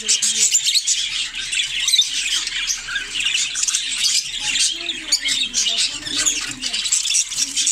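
A flock of budgerigars in a cage chattering together: many overlapping high calls with no break.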